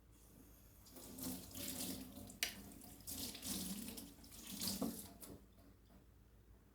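Water running and splashing at a sink for about four seconds, uneven rather than a steady stream, with a couple of sharp knocks partway through.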